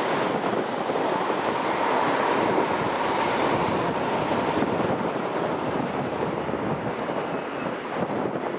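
Electric rail vehicle of Rotterdam's RET network running on the track: steady noise of wheels on rails, with a faint whine in the first few seconds.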